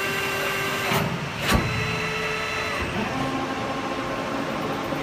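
CNC hydraulic press brake running, with steady whining motor tones that shift pitch about one second and three seconds in, and a sharp clunk about a second and a half in.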